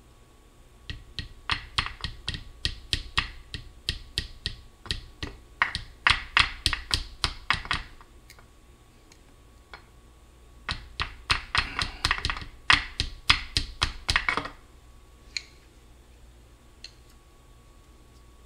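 Light, quick hammer taps on a flathead screwdriver wedged under the transaxle's plastic speed sensor, about three to four a second. They come in two runs of several seconds with a short pause between, then two single taps near the end. The taps are driving the sensor slowly up out of the case.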